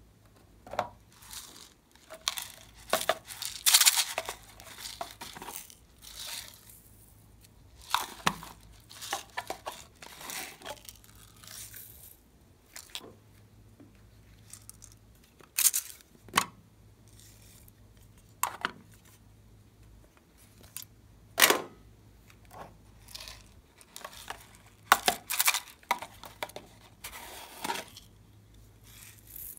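Small plastic pots of sequins and glitter being handled and their contents shaken out onto slime in a glass dish: irregular rustles, clicks and taps, with a few sharper clacks.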